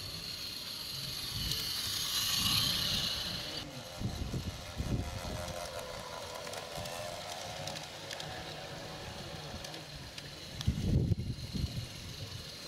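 Model live steam locomotive on a 16mm-scale garden railway passing close by: a hiss of steam that swells and then cuts off suddenly about three and a half seconds in, followed by quieter running with faint ticks from the wheels on the track. A few low thumps come near the middle and end.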